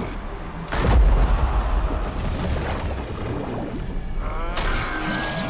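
Action-film soundtrack: a sudden heavy boom about a second in, then a deep rumble under music, with rising tones near the end.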